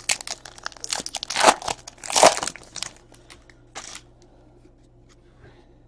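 Trading cards and their plastic packaging being handled: an uneven run of crinkling and rustling for about four seconds, then it goes quiet.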